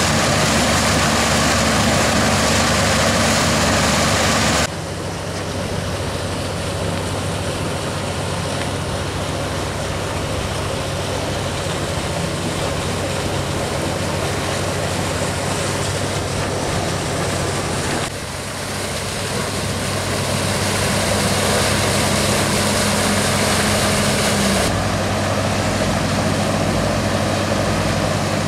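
Boat engines running steadily under way, with water rushing past the hull. The sound changes abruptly about five, eighteen and twenty-five seconds in as one boat's engine and wash gives way to another's.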